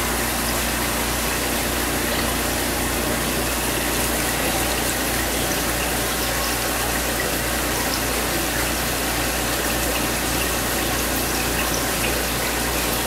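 Steady rush of water running into an aquarium tank, with pump noise and a low, even hum underneath and a few faint bubbly ticks.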